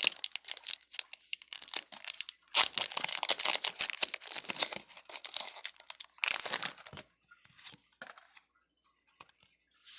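Foil Pokémon booster pack wrapper crinkling and being torn open, in loud crackling stretches during the first seven seconds. After that only a few faint clicks.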